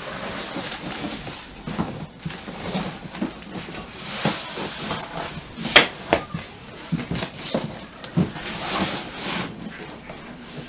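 Large, heavy cardboard box being gripped and flipped upside down: cardboard scraping and rustling, with scattered knocks and a sharp bump about six seconds in.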